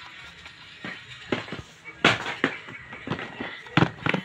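Small cardboard boxes and plastic cases being handled and shifted in a carton, giving irregular knocks and clicks, the loudest about two seconds in.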